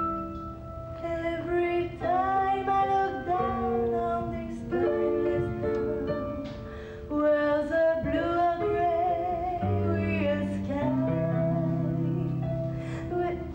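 A woman singing a musical-theatre song over instrumental backing music, with long held and bending notes.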